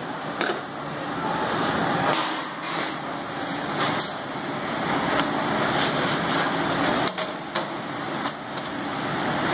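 Steady rushing noise of a commercial pizza kitchen's conveyor ovens and ventilation, with a few sharp knocks and clatters as a pizza peel and cardboard pizza box are handled.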